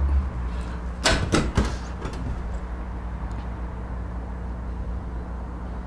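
Metal front door of a Laurel drop-shelf vending machine swung shut, a few knocks and clanks about a second in, followed by a low steady hum.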